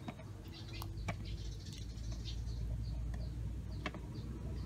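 Water boiling in a steel pot over a wood fire, with a steady low rumble and a few sharp splashes as ginger slices are dropped in. Birds chirp repeatedly in quick short notes from about halfway on.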